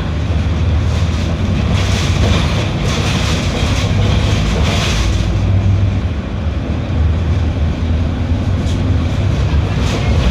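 Mercedes-Benz OF 1721L BlueTec 6 bus's diesel engine running with a steady low drone. A rushing noise swells and fades about two to five seconds in.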